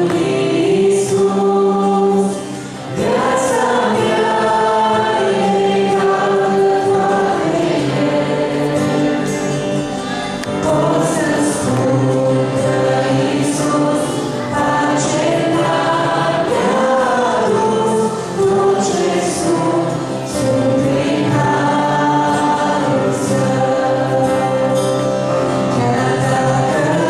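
A small mixed vocal group, two women and a man, singing a Romanian Christian hymn in harmony over acoustic guitar accompaniment.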